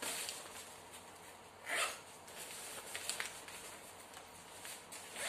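Cordura nylon fabric of a packable backpack rustling as it is handled and gathered, with a louder swish about two seconds in and a few light clicks.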